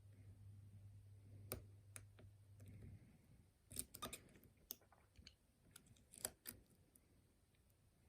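Faint, irregular metallic clicks of lock-picking tools working pins inside a challenge lock, some single and some in short clusters.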